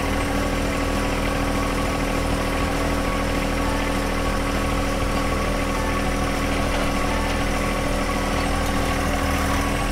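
Small John Deere tractor-loader-backhoe's engine running steadily while its hydraulic stabilizer legs are lowered to brace the tractor for digging.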